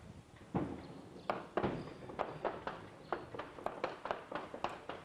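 Rifle fire in combat: a string of sharp cracks and shots, a few loud separate ones in the first two seconds, then a quicker, fairly steady run of about four a second.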